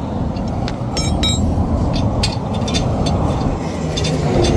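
Steady roar of passing interstate traffic, with scattered sharp metallic clicks and clinks of a lug wrench being fitted onto and snugging the wheel's lug nuts; a cluster of ringing clinks comes about a second in.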